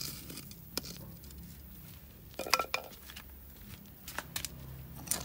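Scattered clicks and knocks of hand tools being handled on a concrete floor, the loudest a brief metallic clatter about two and a half seconds in.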